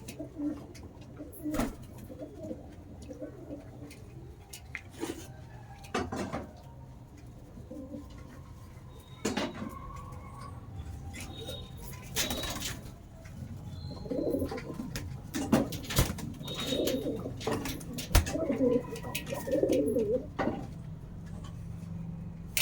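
Domestic pigeons cooing over and over, the cooing growing louder and busier in the second half, with short sharp noises scattered through.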